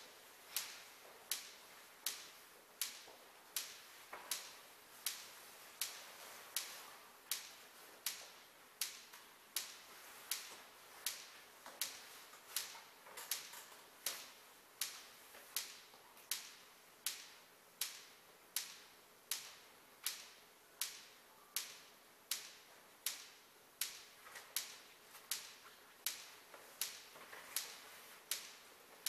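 A steady series of sharp clicks, about three every two seconds at an even pace, each with a short ringing tail.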